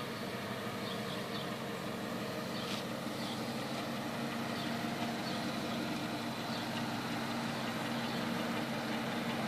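Dodge Durango SUV's engine running at low revs as it crawls slowly over a dirt track, a steady low hum that grows gradually louder as the vehicle comes closer.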